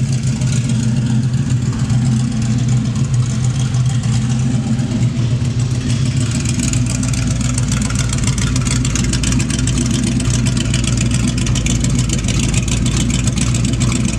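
1963 Dodge 330's 426 Max Wedge V8 idling steadily through open exhaust, loud and even with no revving. About halfway through the sound turns deeper and fuller.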